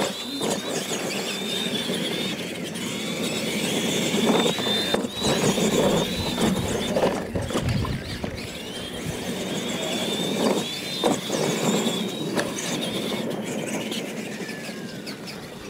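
Electric R/C monster trucks racing: a high whine from their motors and gearboxes that rises and falls with the throttle, fading near the end. Thumps and tyre scrabble on dirt come as they land the ramps.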